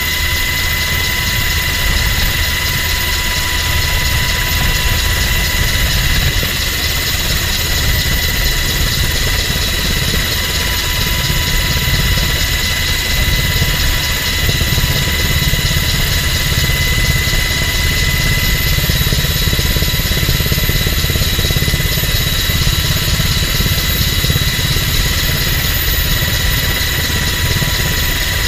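U.S. Coast Guard MH-60 Jayhawk helicopter's twin turboshaft engines and rotor in steady cruising flight, heard from inside the cabin with the side door open: a loud, even low rumble with a steady high whine over it.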